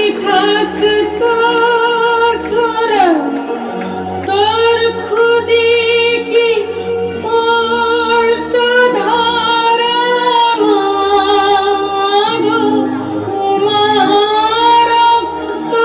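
Song with a woman's voice singing long held notes that glide between pitches, over a low instrumental backing.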